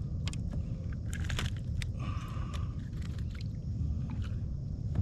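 Close handling noises on a fishing kayak: scattered clicks and taps, with a short scraping rustle about two seconds in, over a steady low rumble.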